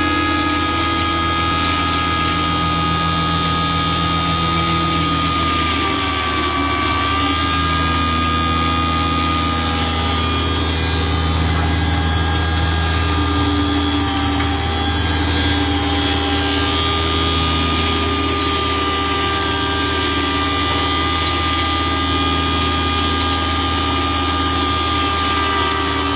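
Electric grain grinder machine running steadily under power: a constant low motor hum with a high whine on top.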